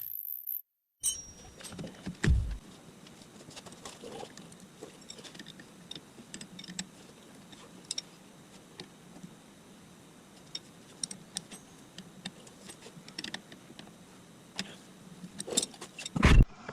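Scattered light metallic clicks and clinks with a few louder knocks, from hand tools and metal parts being handled during sway-bar end link work.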